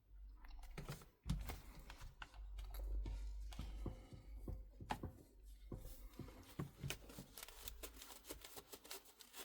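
Faint scattered clicks, taps and rustles of a tablet and small repair tools being handled on a work surface, over a steady low rumble.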